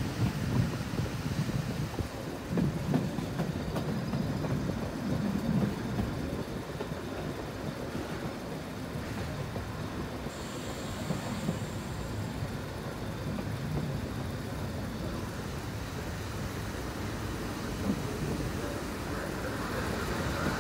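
FIAT M4 diesel railcar heard from on board as it runs on the narrow-gauge line, a steady low rumble of engine and wheels with a few knocks from the rails in the first seconds. A brief high squeal comes about ten seconds in. The running grows a little quieter as the railcar draws into a station.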